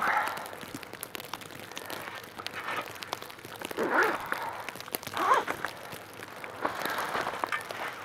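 Crunching snow and rustling tent nylon as a person climbs out of a snow-buried tent with a snow shovel. There are two short vocal sounds about four and five seconds in.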